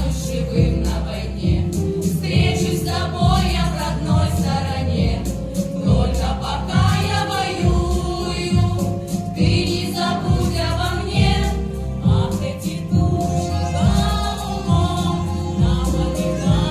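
Vocal ensemble singing a song together over a backing track with a steady, pulsing bass beat.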